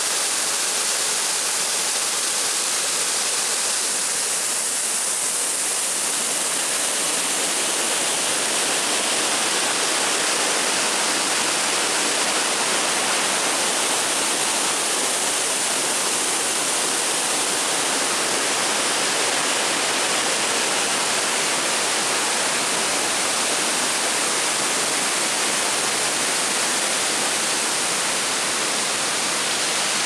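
Waterfall spilling over a stone mill wall onto rocks: a steady, unbroken rush of falling water.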